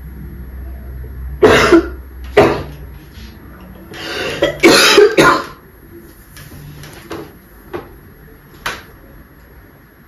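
A woman coughing hard into a towel: a run of harsh coughs, loudest in a cluster about four to five seconds in, then tailing off into a few weaker coughs.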